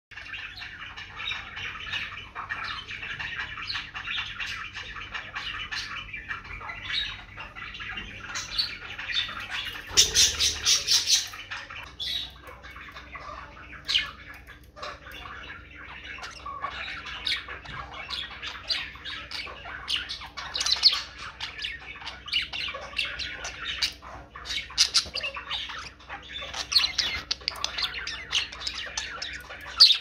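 Budgerigars chattering and warbling without a break, with louder, harsh squawks now and then, the loudest a burst about ten seconds in.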